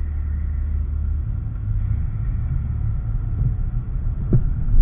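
Low engine and road rumble inside a car's cabin as the car pulls away from a stop and rolls through an intersection. The rumble changes about a second in as the car gets moving, and a single thump comes near the end.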